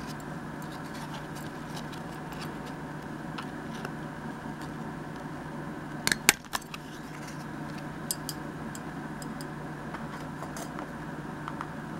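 Hand-held paper punch snapping through a cardstock tag, a sharp double click about six seconds in and a smaller pair about two seconds later, with light handling clicks of paper and tool over a steady background hum.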